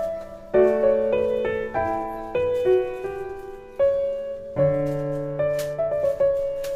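Slow solo piano music: single notes and chords struck one after another and left to ring out.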